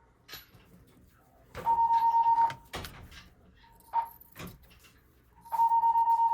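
Electronic alarm-panel beeper sounding a steady high tone in beeps: one about a second long, a short blip near four seconds in, then a longer beep starting about five and a half seconds in. It keeps going because it won't silence, and it is not the fire alarm itself. A few brief knocks fall between the beeps.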